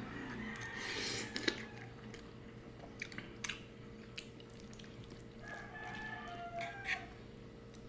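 Close-up chewing and eating of pancit bato noodles, with scattered sharp clicks of utensils or mouth sounds. A rooster crows in the background about six seconds in.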